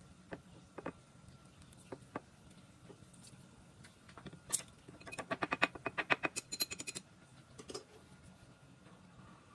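A lemon half squeezed by hand over a small dish of soy sauce: a few scattered soft clicks, then a quick run of small drips, about ten a second, for roughly two seconds past the middle as the juice falls into the sauce.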